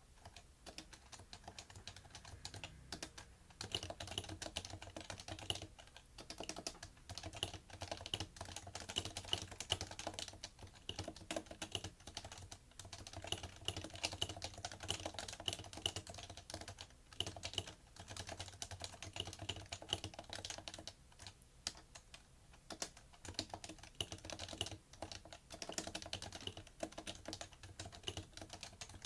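Fast, continuous typing on a PFU Happy Hacking Keyboard Professional2 with Topre electrostatic capacitive key switches: a dense run of keystrokes that slows briefly a few times.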